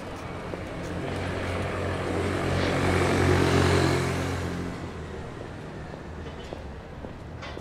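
A motor vehicle passes close by, its engine hum swelling to a peak about three seconds in and fading away by about five seconds.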